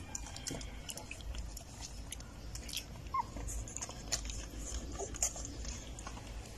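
Nine-day-old puppies nursing at their mother: a run of wet suckling clicks and smacks, with a brief high squeak about three seconds in and a fainter whimper about five seconds in.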